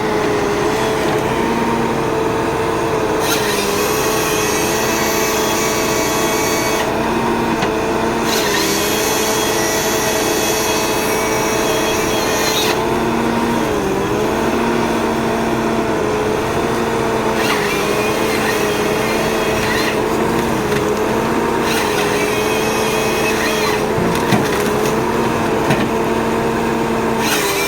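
Ponsse forest harvester running steadily, its engine and hydraulics giving a constant hum with a slightly wavering pitch. Repeated stretches of harsher hissing noise come and go over it as the harvester head works through timber.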